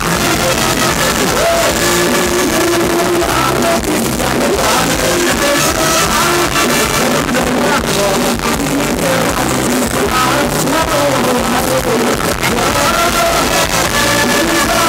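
Live Thai ramwong band playing loud, amplified dance music with a steady beat, with two men singing into microphones.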